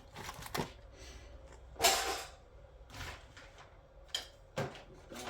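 Hand-handling of scrap TV parts: a short scraping rustle about two seconds in and two light knocks a little after four seconds.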